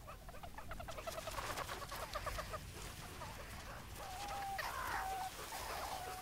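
Meerkats calling: a rapid run of short clucking chirps, about eight a second, then a few drawn-out peeps from about four seconds in.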